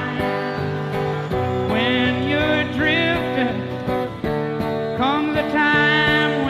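Live concert recording of acoustic guitar music with a sustained, bending melodic line over it, played back from cassette tape.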